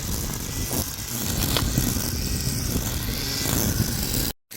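Wind buffeting the microphone outdoors: an irregular low rumble with a faint click about a second and a half in, broken by a moment of dead silence near the end.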